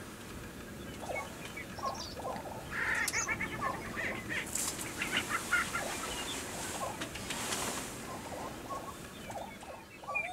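Lesser prairie chickens calling on a lek: a busy chorus of short clucks, cackles and gobbling notes from displaying males, with a quick run of rapid notes about three seconds in. Two brief rushing hisses come near the middle.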